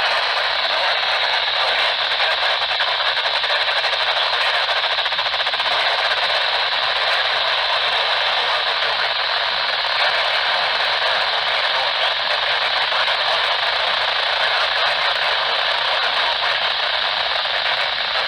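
Steady radio static: an even hiss from a receiver's speaker with no broadcast audio coming through.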